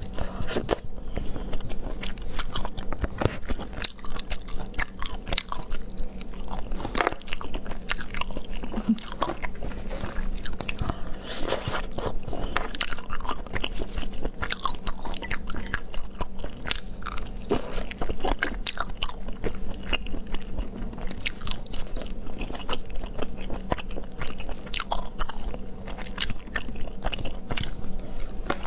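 A person eating: biting and chewing food, with many sharp, irregular crunches.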